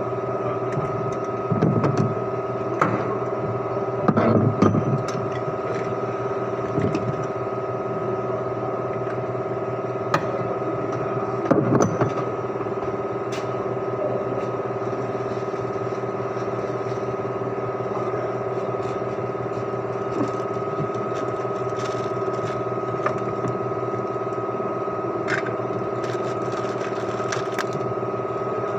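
Steady machine hum with an even pitch, with a few short knocks and clanks in the first third.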